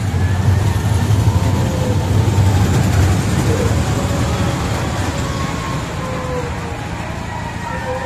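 Dragon-themed kiddie roller coaster train rolling along its steel track with a low rumble, loudest in the first few seconds and easing off as it slows into the station.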